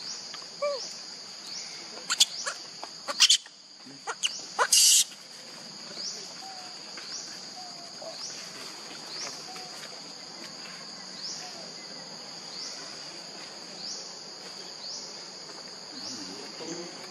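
Steady insect chorus in the forest: a high buzzing drone with a short rising chirp repeating about every three-quarters of a second. Between about two and five seconds in, a few sharp clicks and a brief loud hiss cut through it.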